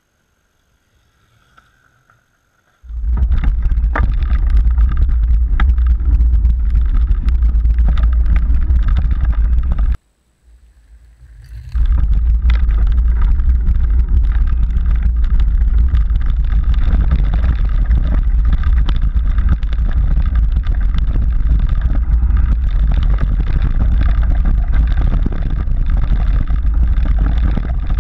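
Mountain bike ridden fast down a rough dirt trail, heard through an onboard GoPro Hero3: a loud low rumble of wind and trail vibration with scattered knocks and rattles over bumps. It starts suddenly about three seconds in after near quiet, cuts out around ten seconds, and comes back a couple of seconds later.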